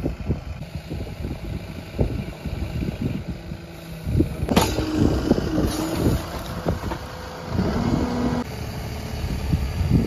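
Backhoe loader's diesel engine running as the arm and bucket work, with scattered knocks and a sharp bang about four and a half seconds in.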